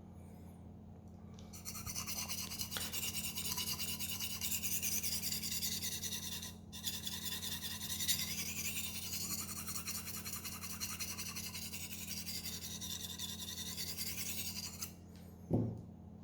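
Knife blade scraped back and forth on a 400-grit sharpening surface: a continuous rasping that starts about a second and a half in, breaks off briefly around the middle, and stops shortly before the end. A short knock follows near the end, over a steady low hum.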